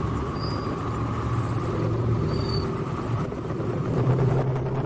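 Motorcycle engine running steadily while riding on the road, with wind and road noise.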